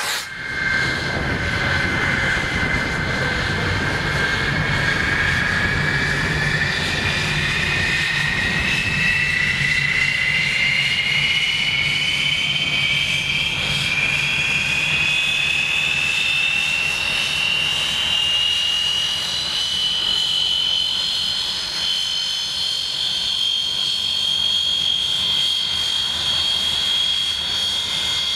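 English Electric Canberra's Rolls-Royce Avon turbojet spooling up just after a cartridge start: a loud whine rising steadily in pitch over a low rumble, levelling off near the end.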